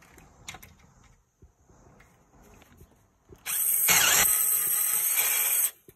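Quiet knocks from handling the luggage-basket parts, then, about three and a half seconds in, a loud high-pitched scraping hiss lasting about two seconds that cuts off suddenly: metal parts of the basket sliding against each other.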